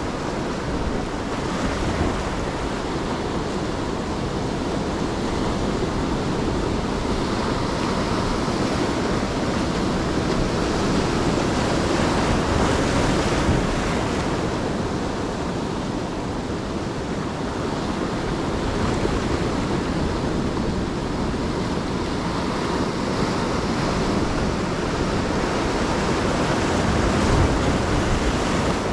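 Ocean surf washing on the beach, a steady rushing noise that swells and eases slowly as the waves come in, with wind buffeting the microphone.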